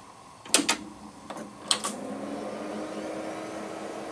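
Amiga 4000 desktop powering on: the power switch clicks twice, a few more mechanical clicks follow, then the cooling fan and hard drive spin up with a whine that rises and settles into a steady running hum.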